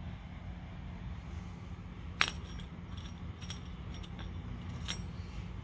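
Light metallic clinks from a steel motor mounting plate and the threaded steel rod screwed into it, the metal knocking together and on a concrete floor. One sharp clink comes about two seconds in, then a string of smaller ones, over a low steady hum.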